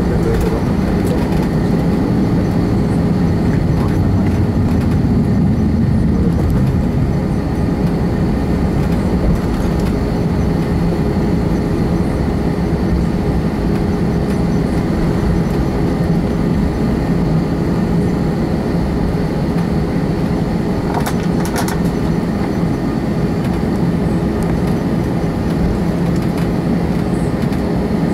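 Airbus A321 jet engines and airframe heard from inside the passenger cabin while taxiing: a steady low drone with a few held whining notes on top. A brief rattle comes about three quarters of the way through.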